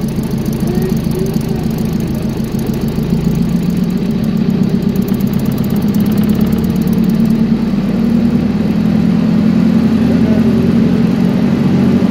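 Standby generator's engine running off load after a remote-start contact on its controller. It is a steady hum that grows louder and fuller about two thirds of the way in as the engine comes up to rated speed.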